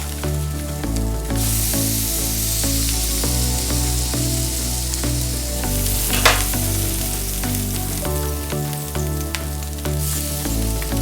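Seasoned tofu frying in a pan: a steady sizzle that swells about a second in and drops back near the end, with one sharp knock about six seconds in. Background music plays underneath.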